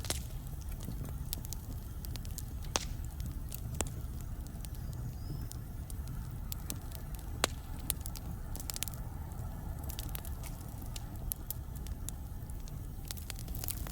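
Wood fire burning in a fireplace: a steady low rumble of the flames with sharp, irregular crackles and pops from the burning logs.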